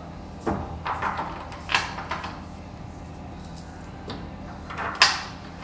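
Wooden wall-bed parts knocking and scraping as a headboard is handled and fitted against the cabinet side: a handful of short knocks and scrapes, the loudest about five seconds in.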